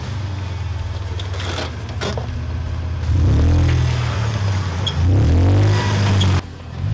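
Toyota Tacoma's engine pulling at low speed as the truck crawls over boulders, revving up twice. There are a few sharp knocks of the tires or underbody on rock about a second and a half in.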